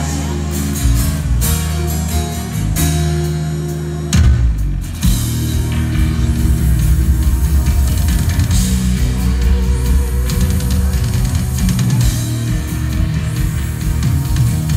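Live rock band playing an instrumental passage. Steady held chords give way about four seconds in to the full band, with drums and distorted electric guitars coming in and playing on.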